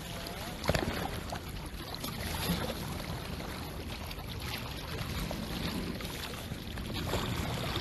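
Steady rushing noise of wind and sea at the water's edge, picked up by a phone's microphone, with one sharp knock just under a second in.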